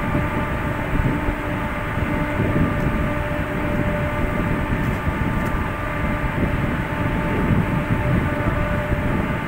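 Steady drone of a ship's machinery running, with several steady hum tones over a low rumble.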